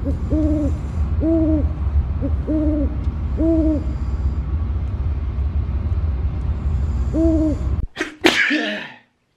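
A sleeping car passenger snoring: short rising-and-falling pitched snores about a second apart, four in a row and then one more near the end, over the steady low rumble of the car on the road. Near the end the rumble stops and a short, loud breathy vocal sound follows.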